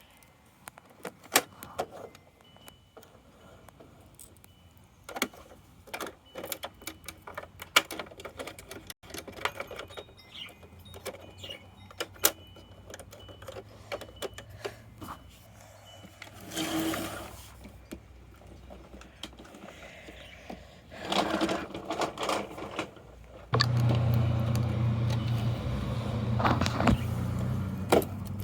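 Plastic toy garbage truck parts being handled, giving many sharp clicks and rattles with a few louder scraping bursts. About 23 seconds in, a steady low motor-like hum starts and keeps going.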